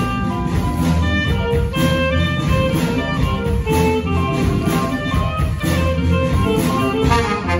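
Live jazz band playing: electric guitar, saxophones, trombone, piano, bass and drum kit together.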